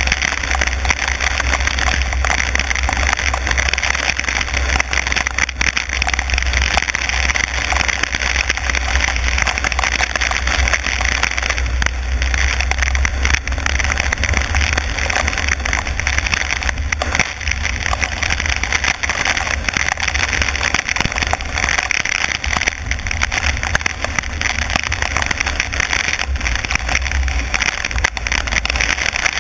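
Car driving on a rain-soaked road in heavy rain: a steady low rumble of wind and road noise under a constant hiss of rain and tyre spray.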